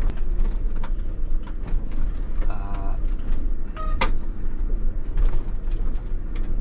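Inside a camper van's cab driving slowly over a bumpy, potholed track: low road rumble with the body and fittings knocking and rattling. Short squeaky creaks come about two and a half and four seconds in.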